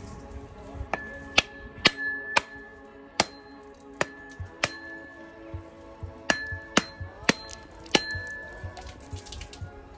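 A small axe striking a dry coconut held in the hand, about ten sharp knocks with a brief metallic ring, cracking the shell open. Background music plays underneath.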